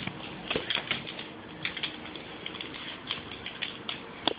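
Dogs' claws clicking and scrabbling irregularly on a hardwood floor as several small dogs run about, with one sharper click near the end.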